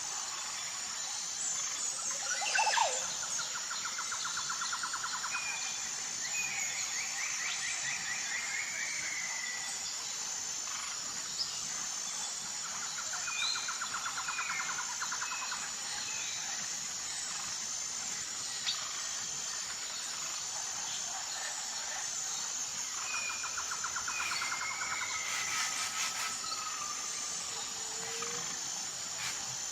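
Jungle ambience: a steady, high-pitched insect drone with birds calling over it. A fast trilling call comes three times, about ten seconds apart, among short chirps, and a louder call sweeps downward about three seconds in.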